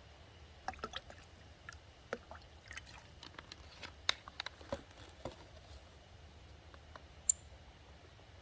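Small irregular clicks and crinkling handling noises for about five seconds, then a single sharp click near the end.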